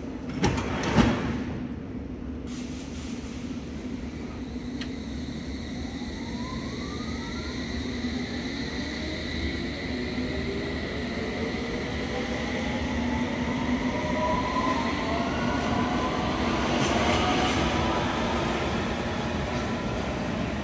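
London Underground S stock train pulling out of the platform: two sharp clunks about a second in, then the traction motors' whine rises steadily in pitch as the train accelerates away, over a steady hum.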